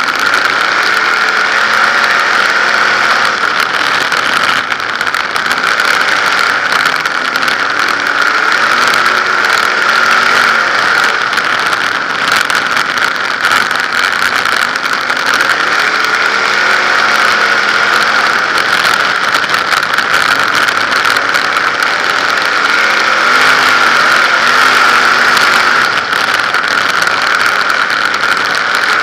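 Winged 360 sprint car's V8 engine running hard at racing speed, heard from an in-car camera. Its pitch rises and falls every few seconds as the car goes through the corners and down the straights.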